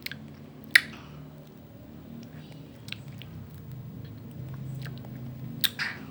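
Close-miked ice cream eating: soft wet chewing and mouth sounds, with two sharp clicks, about a second in and near the end.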